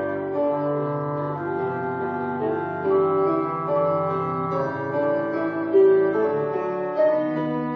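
Slow instrumental piano music, a melody of held notes over a lower part, with no singing.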